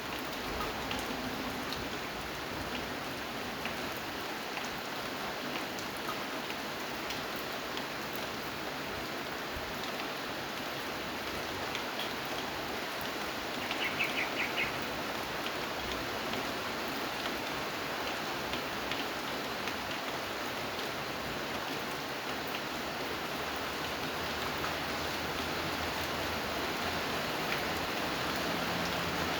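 Steady rain falling, an even hiss with scattered drops. About halfway through comes a brief run of rapid high-pitched notes.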